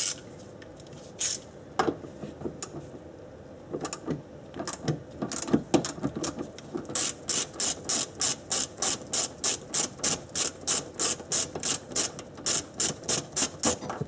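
Hand ratchet with a socket on an extension clicking while undoing a 17 mm seat-belt anchor bolt. A few scattered knocks and clicks come first, then a steady run of ratcheting at about four clicks a second from about halfway in.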